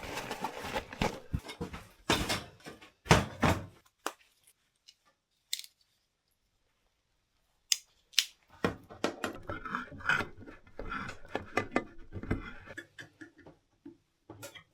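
Clinks, scrapes and clatter of metal cookware and utensils being handled: a few sharp clicks and scrapes, a quiet pause of a few seconds, then a longer run of clattering.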